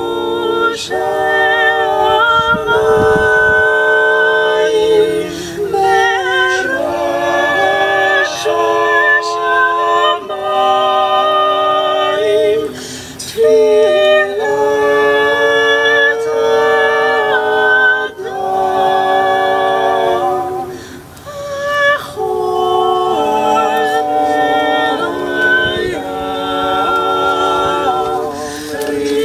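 Mixed vocal quartet, two women and two men, singing a cappella in harmony, with held notes and short pauses between phrases.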